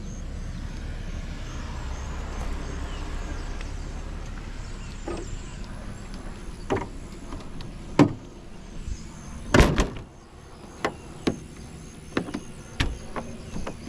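A low rumble fades over the first several seconds, then a series of sharp clicks and knocks from handling the Jeep Wrangler's doors and fittings, the loudest a double knock about ten seconds in.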